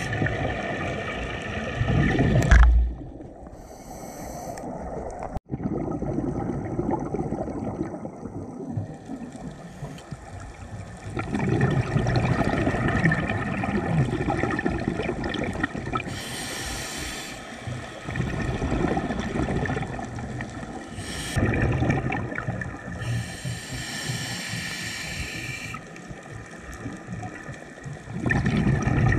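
Scuba diver breathing through a regulator underwater: hissing inhalations alternating with long bubbling exhalations, several breaths. The loudest is a burst of exhaled bubbles about two and a half seconds in.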